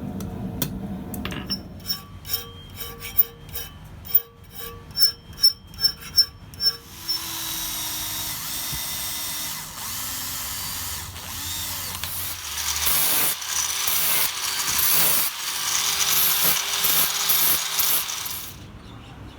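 About a dozen light hammer blows on steel, ringing in the same tones each time. They are followed by an electric power tool running steadily on the metal for about eleven seconds.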